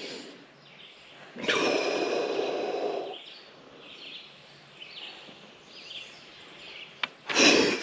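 A person's long, loud breath out, like a sigh, starting about a second and a half in and lasting nearly two seconds, with faint rustling around it.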